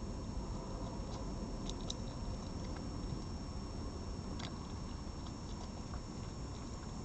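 Red fox eating from a plate, heard as a few faint clicks and taps of chewing over a steady low background hiss.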